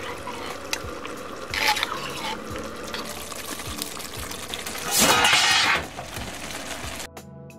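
Wet kitchen sounds of liquid being poured and stirred into a stainless steel pan of tomato sauce, with a louder rush of noise about five seconds in. Background music starts abruptly near the end.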